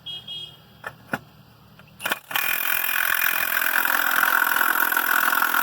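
A few light knocks, then a Milwaukee Fuel half-inch cordless impact wrench hammering steadily for nearly four seconds as it loosens the last nut holding a clamp-on tractor dual wheel.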